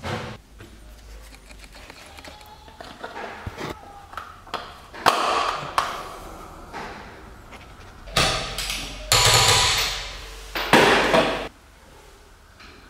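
Metallic clanks, taps and knocks of hand work on a car's wheel, a dozen or so sharp strikes with short ringing tails. A longer, rougher clatter runs near the end and cuts off abruptly.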